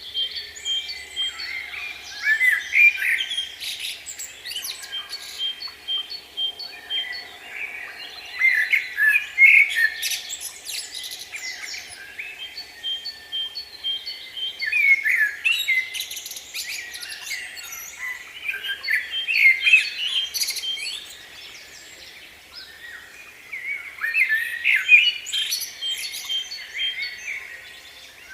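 Small birds chirping and twittering, in flurries of quick calls that come in waves about every five seconds.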